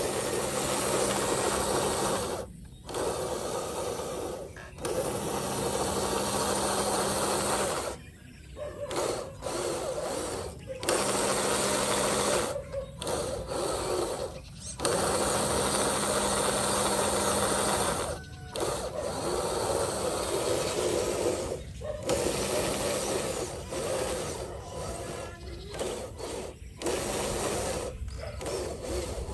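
Electric drive motor and gearbox of a radio-controlled Hino 500 model truck whining as it drives. The whine comes in runs of a few seconds, broken by about ten short stops.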